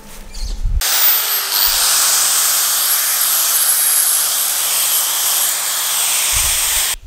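Makita angle grinder grinding down a weld on an aluminised steel exhaust pipe, a loud, steady, high grinding noise. It starts suddenly about a second in and cuts off just before the end.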